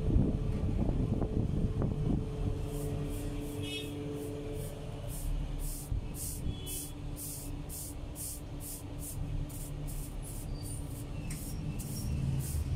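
Straw hand broom sweeping the steel hearth of a bread oven, short swishes at about two a second, over a steady machine hum; a few knocks and clatter in the first couple of seconds.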